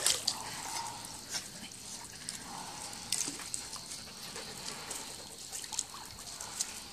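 Light splashing and lapping of swimming-pool water as a small dog paddles, with scattered small drips and splashes.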